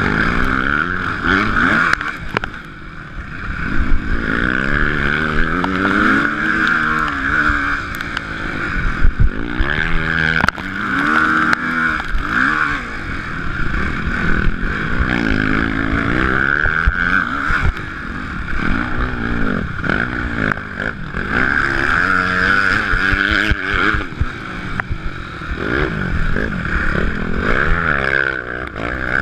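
Motocross bike engine revving hard and easing off over and over as the bike is ridden round a dirt track, the pitch climbing and dropping every second or two, with knocks from the bumps.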